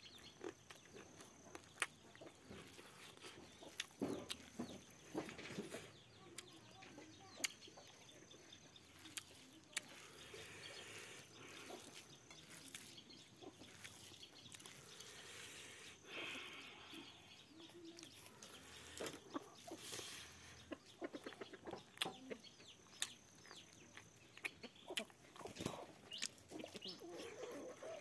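Close eating sounds into a clip-on mic: chewing and short mouth clicks, with fingers mixing rice in a steel plate. Chickens cluck faintly in the background.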